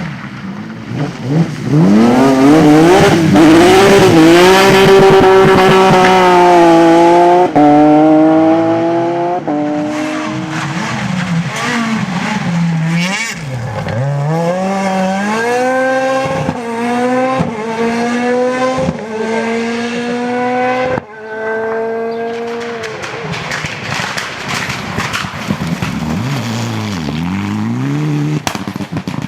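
Rally car engine at full throttle on a rally stage, pulling hard and shifting up through the gears several times: each rise in revs ends in a sudden drop. It is loudest as the car passes close, then fades as it drives away, with another run of revs near the end.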